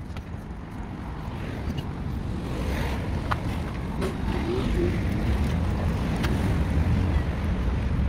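Wind buffeting the microphone, a low rumble that grows louder over the seconds, over faint outdoor ambience with a few short clicks.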